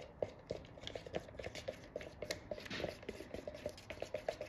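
A stir stick ticking and scraping around inside a plastic cup as fiberglass resin is mixed, in rapid, uneven light taps of about five a second, with a brief scrape near the middle.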